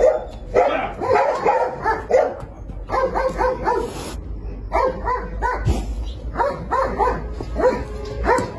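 A dog barking repeatedly in quick runs of short barks and yips.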